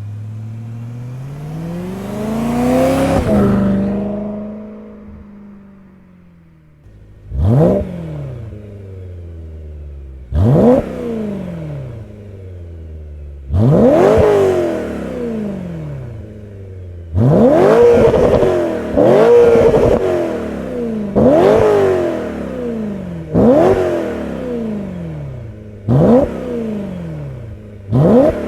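BMW E92 M3's V8 through a Borla ATAK exhaust fitted with venturis: in the first few seconds the engine note climbs and swells, then falls and fades. From about seven seconds in it idles with a steady burble, broken by about eight quick throttle blips, each revving sharply up and dropping straight back.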